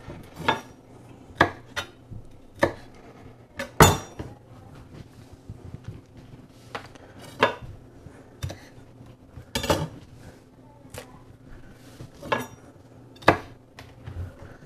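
Chef's knife knocking on a cutting board while cutting fresh dill: a dozen or so separate, uneven knocks about a second apart, the loudest about four seconds in.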